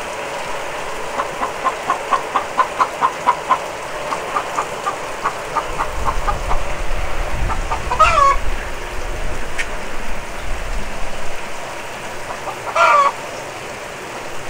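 A chicken clucking in quick runs of about four clucks a second, with a louder drawn-out call twice, over the steady hiss of heavy rain. A low rumble comes up about six seconds in and fades out around eleven.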